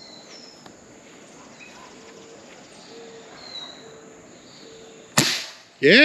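A single sharp rifle shot about five seconds in, followed at once by a loud shout of "Yeah!". Faint bird chirps before it.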